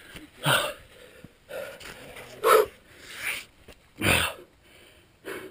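A climber's heavy breathing under effort: about six short, forceful breaths roughly a second apart.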